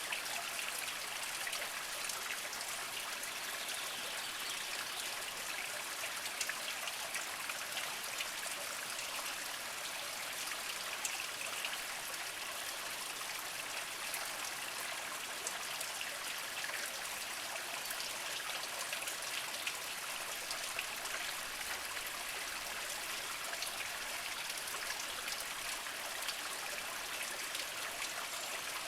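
Small mountain spring trickling slowly over mossy rocks: a steady light splashing with many small drips and plops.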